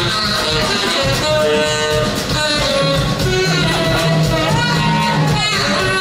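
Live rock-blues band playing loudly: a saxophone takes a solo over drums, bass and electric guitars, its melody bending and sliding between notes.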